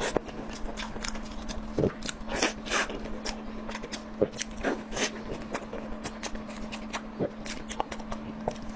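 Close-miked eating sounds: a person chewing and biting food, with irregular wet mouth clicks and smacks several times a second.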